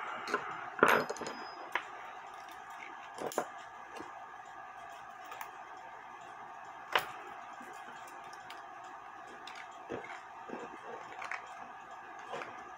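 Irregular sharp metallic clicks and clinks of a clock mainspring and barrel being handled as the spring is worked back into the barrel, over a steady background hum. The loudest clink, about a second in, rings briefly.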